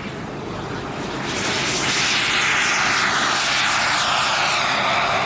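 Radio-controlled model aircraft engine running at full power as the model flies low past. It grows loud about a second in, and its pitch falls as it goes by.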